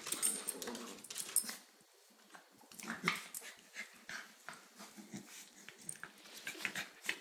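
Pembroke Welsh corgi puppies play-fighting and mouthing each other: short, irregular bursts of dog noise, loudest in the first second and a half, then scattered.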